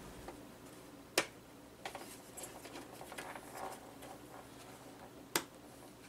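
Faint handling noises from inside a small desktop computer case as hands work its metal drive cage and cables, with two sharp clicks about four seconds apart, the first about a second in.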